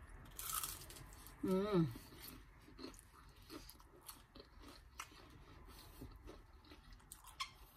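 A person biting into a crispy deep-fried plantain turon and chewing it: a crunch about half a second in, then many soft crunches and small clicks of chewing. A short vocal sound at about a second and a half.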